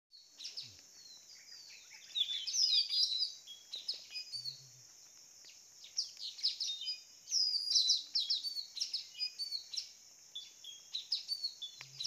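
Decoy puling (nuri tanau) parrots calling in many quick shrill chirps and whistles, with dense bursts about two seconds in and again from about six to eight seconds, over a steady high hiss. This is the lure call used to draw wild birds of the same kind.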